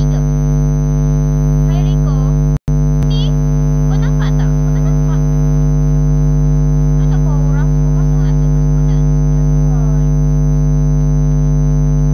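Loud, steady electrical hum with many overtones, with faint snatches of a woman's voice coming through it now and then. The sound cuts out completely for an instant about two and a half seconds in.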